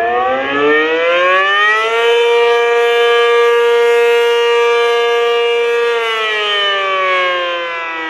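ACA Penetrator-50 (P-50) rotating tornado siren sounding the attack signal. Its pitch climbs for about two seconds, holds steady for about four, then starts to fall again near the end.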